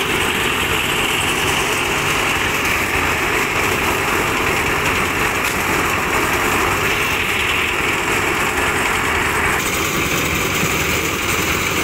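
Small engine of a portable drum concrete mixer running steadily under load, with no pauses. Its tone shifts slightly about ten seconds in.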